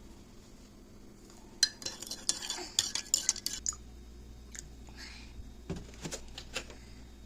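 Cutlery and dishes clinking and clattering: a quick flurry of sharp clinks a couple of seconds in, then a few scattered clinks near the end.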